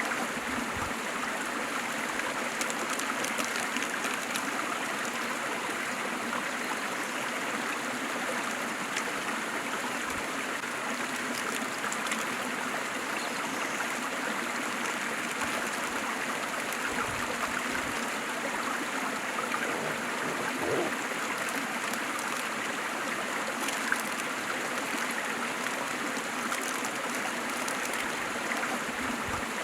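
Waterfall: water pouring and splashing steadily.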